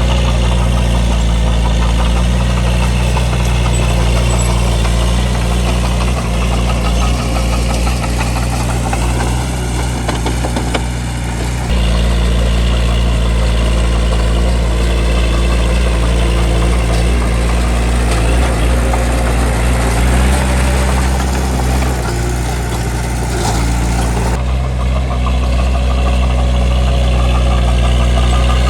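Bulldozer's diesel engine running steadily under load, with abrupt shifts in its tone about twelve seconds in and again near the end.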